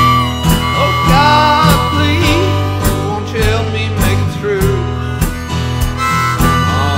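Small band of harmonica, acoustic guitar, electric bass and drums playing an instrumental passage. The harmonica leads with bending notes over strummed guitar, a bass line and a steady drum beat.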